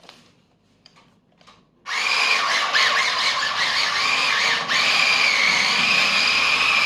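Electric motor and drivetrain of a 1/14-scale 4WD RC drift car whining hard, starting abruptly about two seconds in after a few light clicks. The pitch wavers as the throttle is worked and dips briefly past the middle.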